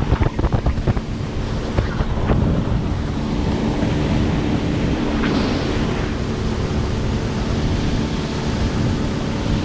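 Boat engine running steadily, with wind buffeting the microphone and water rushing past the hull; a few sharp knocks in the first two seconds.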